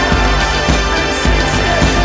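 Soundtrack music with a bass beat.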